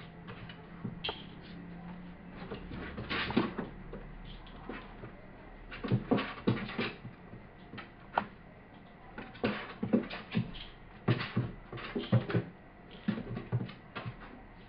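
A cat's paws and claws knocking and scratching on the wooden top of a bookcase as it shifts about and swats, in irregular clusters of short taps and scrapes.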